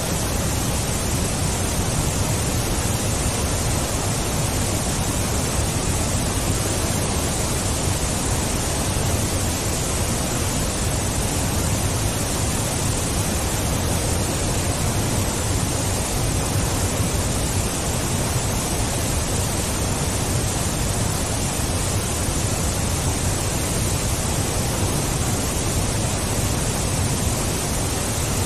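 Steady, even rushing noise with no separate events and no change in level.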